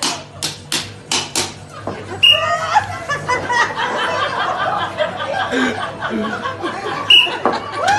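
A quick run of sharp knocks, about four a second, that stops about a second and a half in, then a crowd laughing and shouting.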